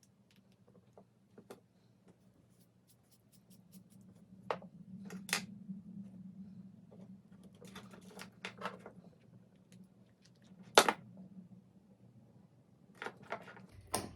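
Scattered small clicks and taps of metal and plastic robot parts and tools being handled during disassembly, with one sharper knock about eleven seconds in.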